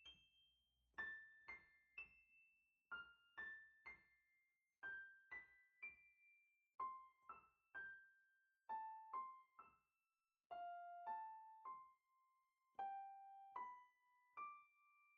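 Quiet background music: a soft electric piano plays a slow, sparse melody of single high notes and occasional two-note chords, each note ringing and fading.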